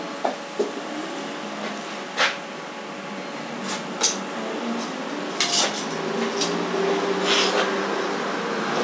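Scattered light clinks and knocks of dishes and utensils being handled at a table, about half a dozen sharp ones spread through, over a steady background hum.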